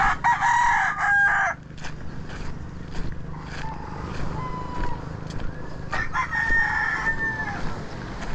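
Roosters crowing: a loud crow right at the start lasting about a second and a half, a fainter call around four seconds in, and another long crow about six seconds in. Faint regular crunching steps on pebbles and a low steady rumble run underneath.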